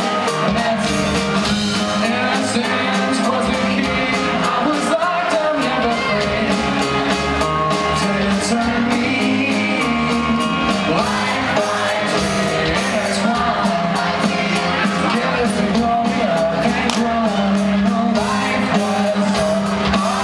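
Live rock band playing a song, with acoustic guitar, keyboard, drums and bass under a sung lead vocal. It comes through the hall's PA and is heard from within the audience.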